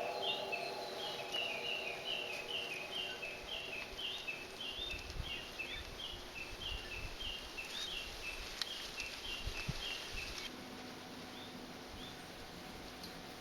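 A rapid series of short, high, falling chirps, two or three a second, which cut off suddenly about ten seconds in. The tail of a steam locomotive whistle dies away at the very start.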